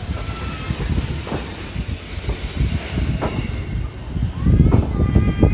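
C11 steam tank locomotive moving slowly past, its steam hissing and running gear rumbling, with scattered knocks. It grows louder about four and a half seconds in.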